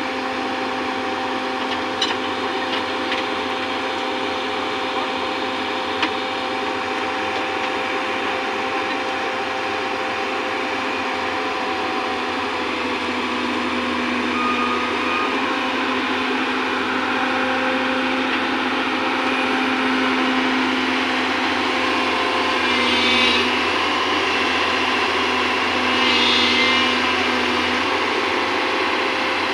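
Hyundai Robex 215L crawler excavator's diesel engine running steadily as the machine tracks up onto a flatbed truck and swings round on it, with a few sharp clanks in the first several seconds. The engine note rises and grows louder about halfway through, with two brief harsher bursts of noise near the end.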